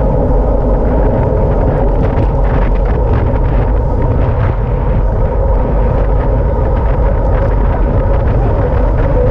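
Steady loud wind roar buffeting a bike-mounted camera's microphone at speed on a road-bike descent, with the hum of tyres on smooth asphalt underneath.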